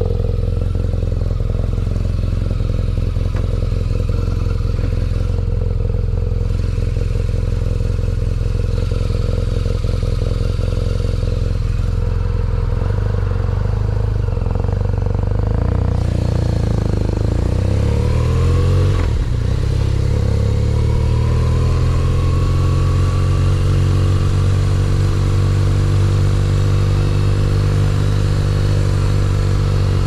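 2019 BMW R nineT Pure's air/oil-cooled 1170 cc boxer twin running at a steady pitch. About two-thirds of the way in the engine note shifts, then climbs steadily as the bike accelerates.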